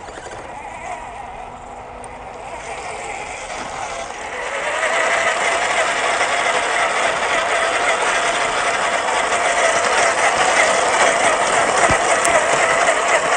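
Electric motor and gearbox of a small-scale RC off-road truck whining under throttle. The whine wavers slightly in pitch and grows clearly louder about four seconds in.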